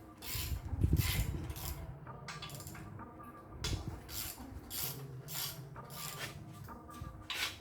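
Hand tools working on an engine block: a string of irregular clinks, knocks and scrapes, the strongest about a second in.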